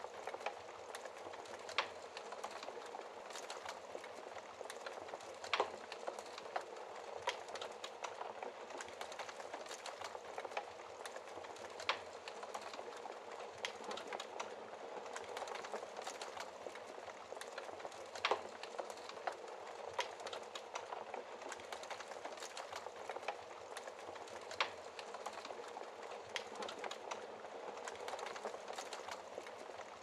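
Wood fire in a fireplace crackling, with a steady hiss of burning logs and sharp pops every few seconds.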